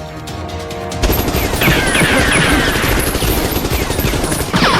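Sustained rapid automatic gunfire that starts suddenly about a second in, with many short falling whistles over it, like ricochets, around two seconds in and again near the end.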